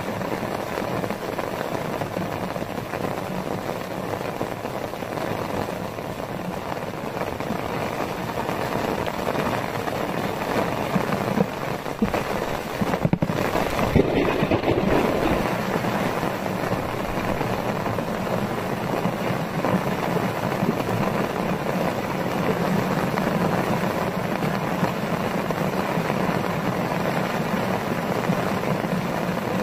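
Heavy tropical rain pouring steadily, a dense hiss of drops, with a few louder thumps around the middle.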